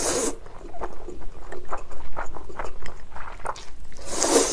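Close-up eating sounds of spicy chewy cold noodles: a loud slurp at the start, then steady wet chewing with many short clicks, then another long slurp near the end.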